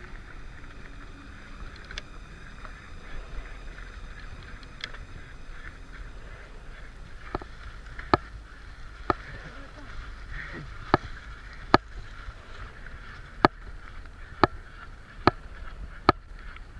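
A bicycle being pedalled up a climb, with a sharp click about once a second from about seven seconds in, over a steady rolling hiss.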